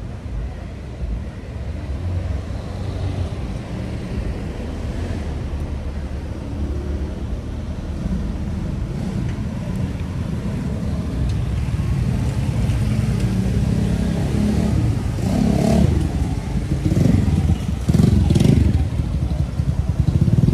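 Street traffic: cars and motor scooters running and passing by, getting louder over the last few seconds.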